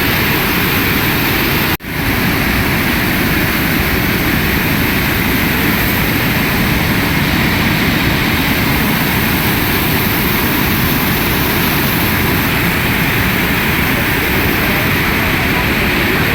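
Vasudhara waterfall's water falling, a loud, even rush that holds steady throughout, cutting out for an instant about two seconds in.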